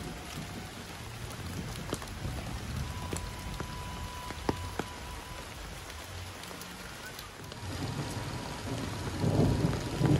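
Steady rain on leaves and roofs, with many single drops ticking close by. A low rumble swells near the end.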